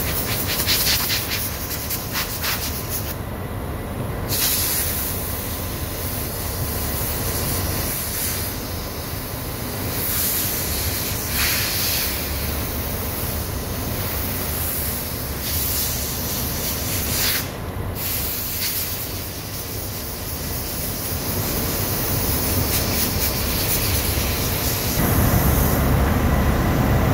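Compressed-air blow gun blasting air through a copper starting-air pipe and its fittings to clear them: a loud, steady rushing hiss that cuts out briefly twice as the trigger is let off.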